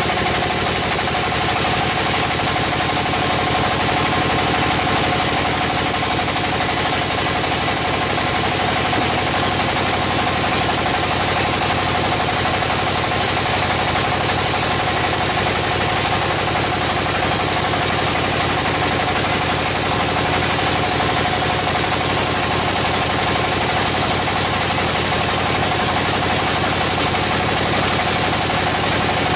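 Band sawmill running steadily as a squared log is fed through its blade: a loud, even mechanical din with a constant high tone over it.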